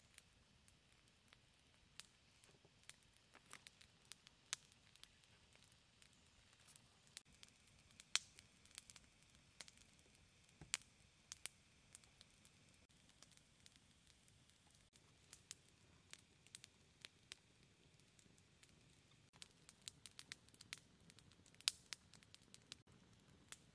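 Faint crackling of a small wood fire, with scattered sharp pops and snaps at irregular intervals, a few louder than the rest.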